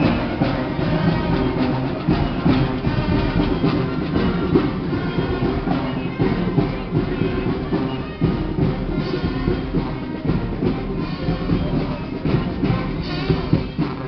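Street marching band playing, brass horns holding notes over a busy beat of drums.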